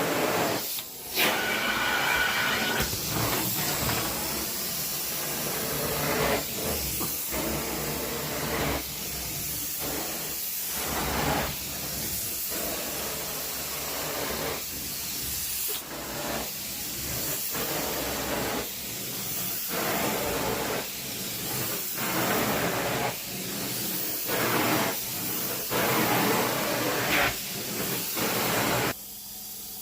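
Carpet-cleaning suction tool worked back and forth over carpet: a loud, rushing hiss that rises and falls with each stroke, about once a second. It cuts off abruptly near the end.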